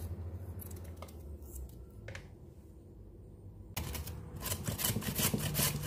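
Raw potato being grated on a flat metal grater: rhythmic rasping strokes, several a second, starting about four seconds in and growing louder. Before that, faint scraping of a knife peeling the potato.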